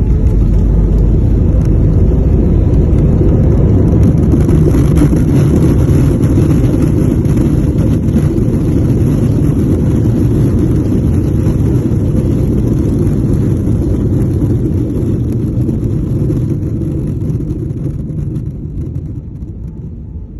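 Airbus A320-family jet airliner landing: a loud, steady rumble of engines and runway roll that fades over the last few seconds as the aircraft slows.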